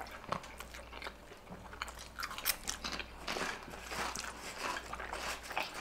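Close-up eating sounds: irregular crunching and chewing of chips and sausage in a bun.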